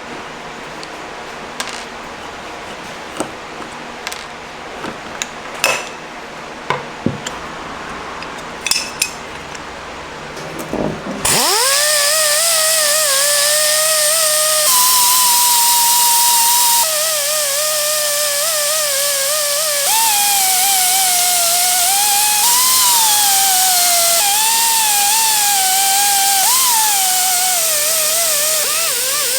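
Scattered clicks and knocks of parts being handled, then about eleven seconds in a high-speed rotary power tool spins up with a rising whine and sands the metal gas cap. Its pitch wavers and dips under load over a loud grinding hiss, with abrupt jumps where the recording is cut.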